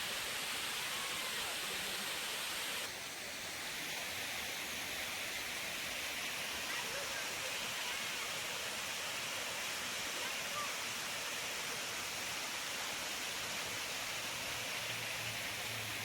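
Waterfall cascading over tiered rock ledges: a steady rush of falling water that dips briefly about three seconds in.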